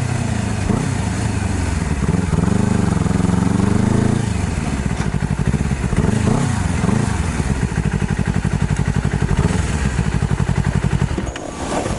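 Honda CBR250RR motorcycle engine running, its revs rising and falling for the first few seconds, then settling into steady low revs with an even pulse that fades near the end.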